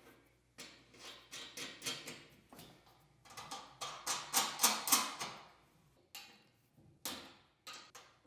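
Small metallic clicks and ticks of steel hex nuts being threaded by hand onto bolts on a metal bed-frame bracket, with a quick, louder run of ticks around the middle and a few single clicks near the end.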